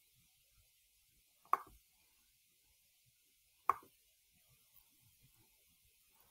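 Near-silent room tone broken by two short, sharp clicks about two seconds apart.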